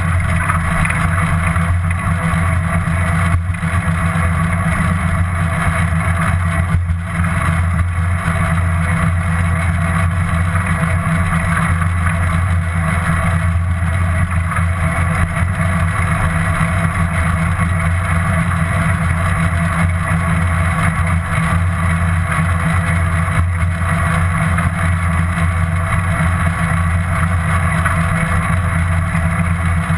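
Steady rumble and wind noise of a bicycle in motion, picked up by a GoPro action camera riding along, unchanging throughout.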